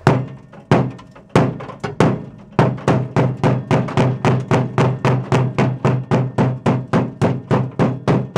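Hammer blows on the rusted sheet-steel battery tray area of a VW Type 2 bus, breaking out fiberglass that was laid over the rust. A few spaced strikes, then steady hammering about three blows a second, each ringing briefly.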